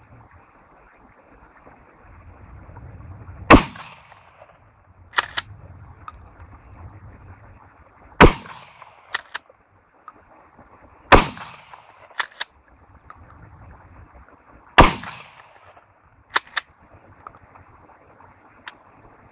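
Pump-action shotgun fired four times, a few seconds apart. About a second after each shot comes a quick pair of sharp clicks as the slide is racked back and forward to chamber the next shell.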